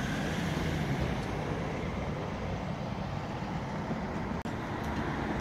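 Steady road traffic noise with a low engine rumble, even throughout.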